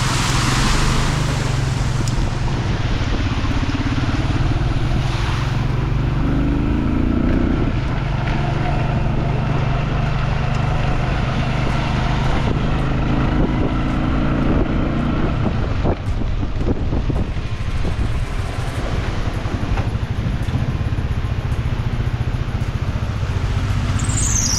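A car driving along rain-flooded roads: a steady low engine and road rumble under a hiss of wet tyres and water. A brief falling whistle comes at the very end.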